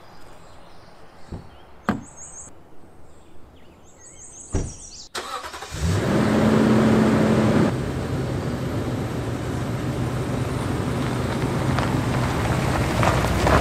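A Toyota Tundra pickup's V8 engine starts about six seconds in. It is loudest for the first couple of seconds after it catches, then settles to a steady run as the truck pulls forward. Before that, a few sharp clicks and knocks, typical of the truck's door being opened and shut.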